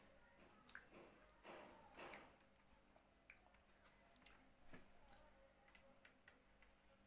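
Faint eating sounds: fingers squishing and picking up chicken biryani rice, with soft chewing and small clicks. The loudest are two short squishes about a second and a half to two seconds in.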